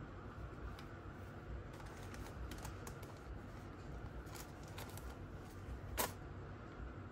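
Light clicks and taps from hands handling a cloth sunglasses pouch and plastic sunglasses, with one sharp click about six seconds in as the sunglasses come out of the pouch. A low steady hum runs underneath.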